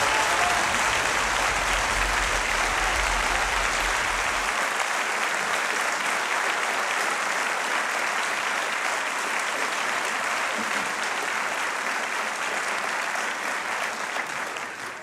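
Audience applauding steadily, slowly getting a little quieter.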